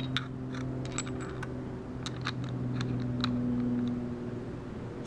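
About a dozen small metallic clicks and scrapes at irregular intervals, mostly in the first four seconds, as a 12-gram CO2 cartridge is loaded into a stock-class paintball pistol's grip and the grip cap is screwed on. A steady low hum runs beneath.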